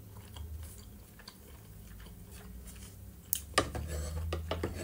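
Close-up chewing of soft boiled dumplings with small mouth clicks, then from about three and a half seconds a metal spoon clinking and scraping against a wooden bowl as more dumplings are scooped.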